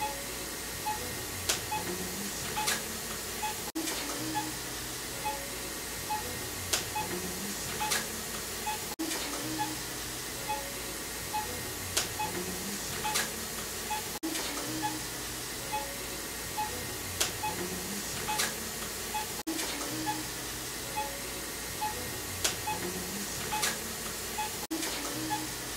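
Looped electronic background music: soft held low notes under a light, regular ticking beat, the same phrase repeating about every five seconds.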